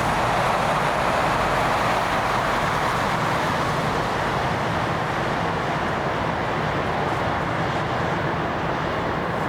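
Jet airliner engine noise, a steady rush that slowly fades over several seconds.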